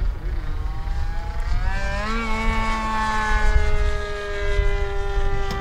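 Propeller and motor of an F3A aerobatic radio-controlled model airplane in flight. The whine wavers in pitch, climbs about two seconds in, then holds steady and eases slightly lower near the end as the plane flies its maneuvers.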